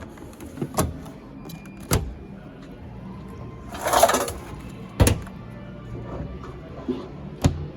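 Faint background music, broken by four sharp knocks and clicks and a brief rushing scrape about four seconds in, the loudest sound: the clunks of washing machine doors and detergent drawers being handled.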